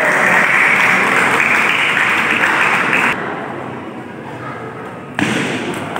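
Spectators applauding for about three seconds after a point is won, stopping abruptly; lower hall noise follows, rising again about five seconds in.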